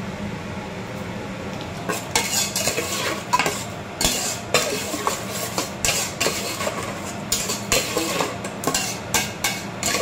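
A metal ladle stirring and scraping around a stainless steel bowl of liquid dressing, mixing in seasoning powder. Irregular clinks and scrapes of metal on metal begin about two seconds in.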